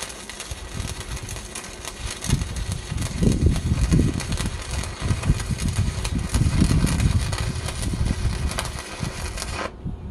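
Stick-welding arc from a 3 mm electrode burning on steel, crackling steadily, then cutting off suddenly about a second before the end.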